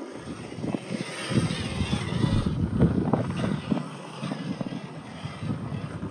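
The small 260 electric motor and gearbox of a 1/12 scale MN99S RC crawler whining as it crawls over rock, with wind buffeting the microphone in an uneven low rumble.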